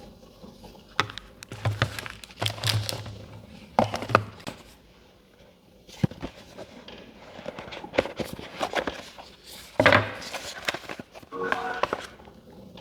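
Handling sounds from unboxing a phone and its packaging: scattered clicks and knocks, light rustling and a few dull thumps.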